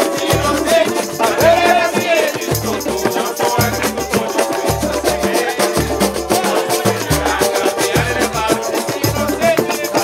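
Live samba played on acoustic instruments: hand drums (a tantã and a surdo-type drum) beat a steady low pulse under fast, continuous rattling and jingling percussion from pandeiro and shakers, with a samba banjo and voices singing over it.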